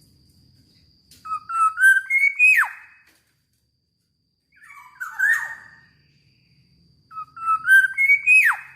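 Black-naped oriole singing three loud fluty whistled phrases. The first and last are nearly the same, climbing notes that end in a sharp downward slur.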